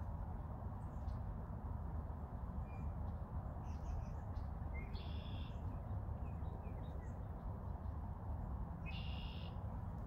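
Two clear bird calls about four seconds apart, each about half a second long, with a few fainter short chirps before them, over a steady low background rush.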